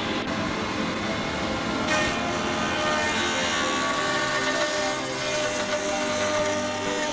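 A power woodworking machine cuts a hardwood beam: a motor runs steadily under the rasping noise of the cutter in the wood. The cutting noise grows brighter and louder about two seconds in.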